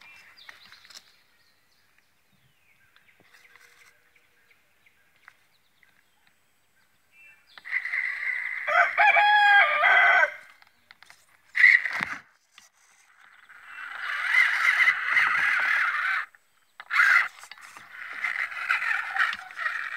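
A rooster crows, a loud drawn-out call about eight seconds in. Further loud bursts of sound follow in the second half.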